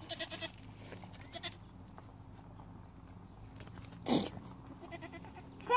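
A farm animal bleating: one short, louder bleat falling in pitch about four seconds in, with fainter calls near the start.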